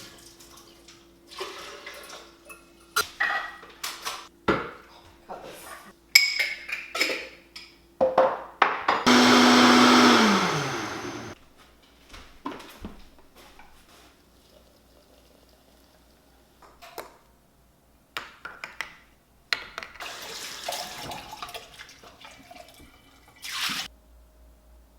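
An electric blender runs in one short burst of about two seconds, its motor tone dropping as it spins down. Scattered clicks and knocks come before and after it.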